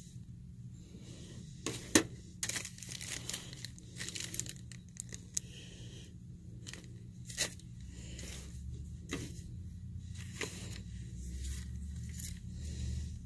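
Rustling and crinkling with scattered sharp clicks as items are handled close by, over a steady low hum. The loudest click comes about two seconds in, and a low rumble joins in from about eight seconds.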